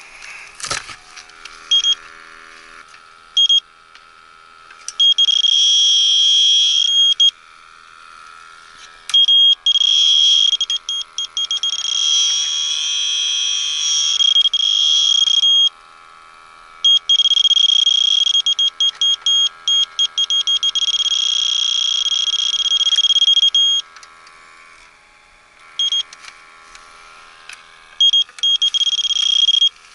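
Electronic refrigerant leak detector alarming: a high electronic tone that sounds for several seconds at a time, broken by short stretches of rapid beeping. The alarm shows it is picking up leaking refrigerant.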